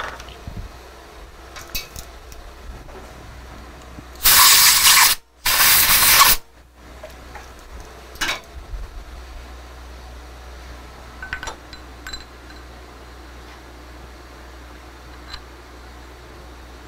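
Two loud hissing bursts of pressurised spray, each about a second long and a moment apart, about four seconds in. A few light metallic clicks and clinks of tools come before and after, over a steady low shop hum.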